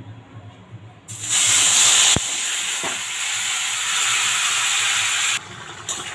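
Marinated chicken tipped into hot oil in a kadai, setting off a loud sizzle about a second in, with a single knock shortly after. The sizzle drops away sharply near the end.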